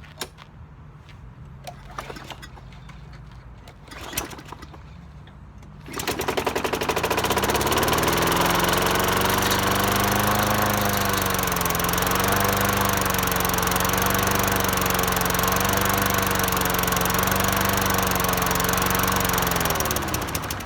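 Lawn mower engine catching about six seconds in after a few knocks, running with its speed rising and falling, then winding down and stalling near the end. It shuts itself off; the owner thinks it probably needs a good carburetor cleaning.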